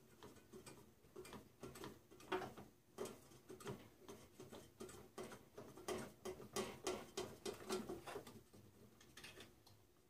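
Faint quick clicks and taps, about three a second, of a screwdriver working loose the Phillips-head screw on the metal strap that holds a microwave oven's capacitor.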